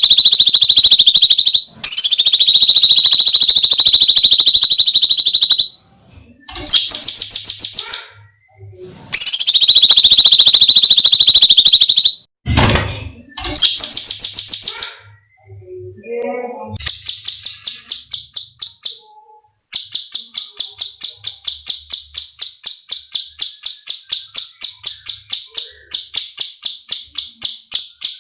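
Cucak cungkok (grey-cheeked bulbul) giving a series of long, harsh, piercing screams with short gaps between them. About two-thirds of the way through it breaks into a fast run of sharp repeated notes, about four a second, lasting to the end.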